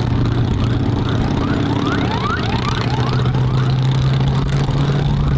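Escort vehicle's police siren yelping in quick rising sweeps, about two or three a second, over a steady low drone.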